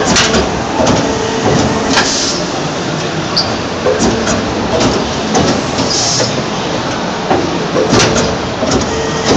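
TSP injection moulding machine running a fast cycle: steady hydraulic machine noise, with a sharp clunk about every two seconds and a short hiss every few seconds.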